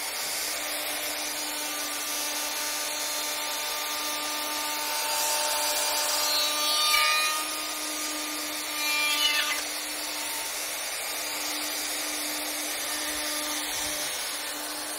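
Festool OF 2200 router running at speed as its dovetail cutter mills a groove in a timber beam: a steady whine, with louder passages where the pitch dips about six seconds in and again near nine seconds as the cutter takes the wood.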